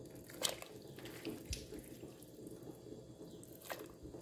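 Raw pork shank dropped into a stockpot of water and hominy, making a few faint splashes.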